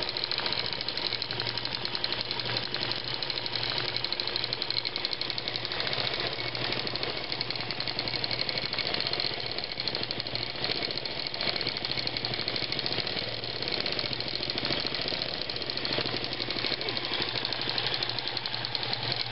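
Long-arm quilting machine running and stitching, its needle going in a fast, steady run of strokes.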